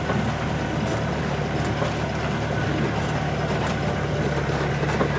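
Mercedes Sprinter 4x4 van's engine running steadily in low gear as the van pulls through a mud puddle.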